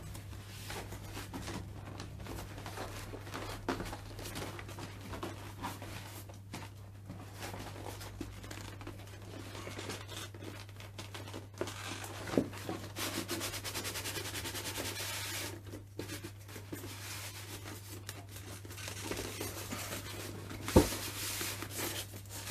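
A cardboard box being opened by hand: packaging rustling, scraping and tearing, with scattered knocks. The loudest is a sharp knock near the end. A steady low hum runs underneath.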